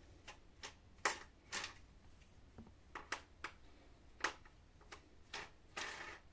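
Irregular light clicks and taps of a screwdriver working the keyboard screws on the plastic underside of an HP ProBook 450 G1 laptop, with a short scrape near the end.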